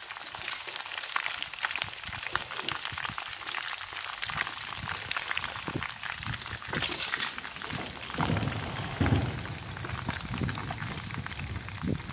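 Whole fish frying in hot oil in a pan: a steady crackling sizzle of many fine pops. Low rumbling joins in during the last few seconds.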